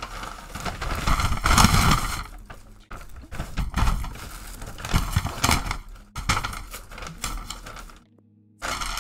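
Close-microphone eating noises: a Wendy's burger wrapper rustling and crinkling while it is handled and the burger is bitten and chewed, in irregular bursts that stop abruptly near the end.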